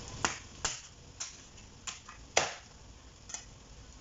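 Meat cleaver chopping through a cooked crab's shell onto a wooden chopping board: about six sharp knocks at uneven intervals, the loudest about two and a half seconds in.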